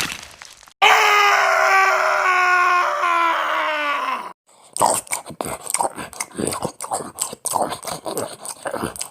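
A long, drawn-out vocal groan or howl lasting about three seconds and sagging slightly in pitch. Then comes a run of quick, irregular chomping and crunching noises: something is devouring food.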